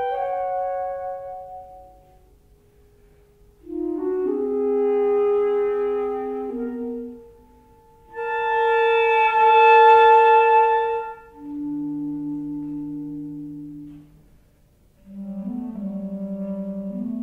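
Two clarinets play slow, sustained held notes in phrases separated by brief pauses. Past the middle they hold low notes, and near the end a low, fluttering figure begins.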